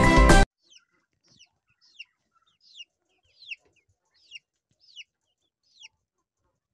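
Young chickens peeping: a string of about nine short, high calls, each falling in pitch, roughly one every half second to a second. Background music plays at the start and cuts off abruptly.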